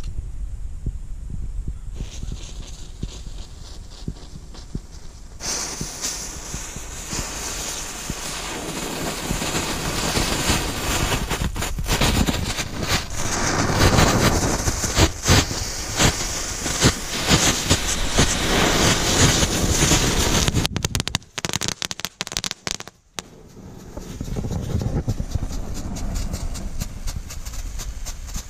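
Small ground fountain firework hissing and crackling as it sprays sparks, starting about five seconds in and cutting off about twenty seconds in with a few sharp snaps; a quieter hiss returns near the end.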